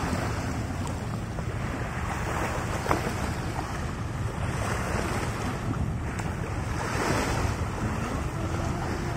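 Small waves washing and splashing against a rocky shore, swelling a few times, with wind buffeting the microphone as a steady low rumble. A brief sharp click about three seconds in.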